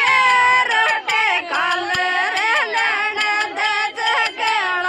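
A woman's voice singing an uchata Meena folk song, over a steady beat of sharp strikes.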